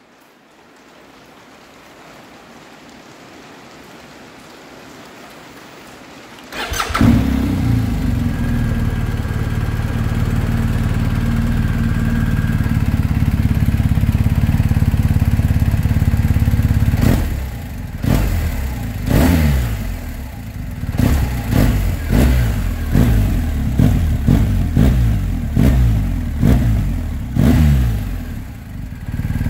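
BMW R 1250 GS boxer-twin motorcycle engine starting about six and a half seconds in, idling steadily, then blipped through a dozen or so quick revs heard through its exhaust.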